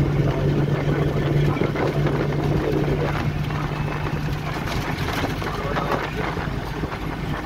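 Steady engine and road noise of a moving vehicle, heard from inside the cabin, with a low engine hum that fades about halfway through.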